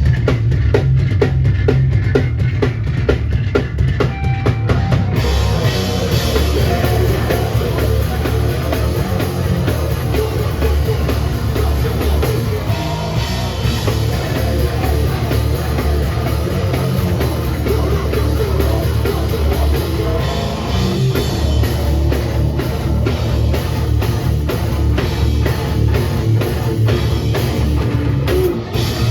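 Hardcore/metalcore band playing live: distorted guitars, bass and drums, loud and dense, with the top end filling in harder about five seconds in.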